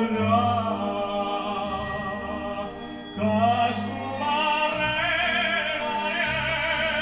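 A recording of a male singer in an operatic style, the voice held with vibrato over orchestral accompaniment, played back over a large hi-fi loudspeaker in a room.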